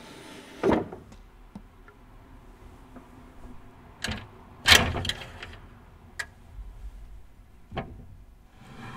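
Wooden sliding window panels being slid along their tracks, with a series of knocks and thuds as the frames meet and stop; the loudest knock comes about halfway through.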